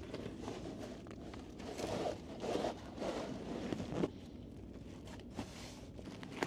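Irregular rustling, scraping and crunching of camping gear being handled and packed, with a few heavier bumps about two to four seconds in.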